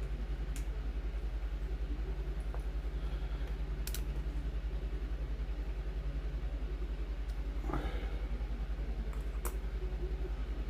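A steady low hum with a few light, sharp clicks of small screws and the plastic wheel being handled as the screws are fitted into an RC plane's wheel halves.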